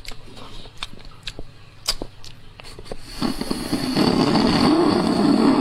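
A few small clicks, then a loud, long slurp about three seconds in, lasting about two and a half seconds: a marrow bone being sucked by mouth to draw out marrow that is stuck inside.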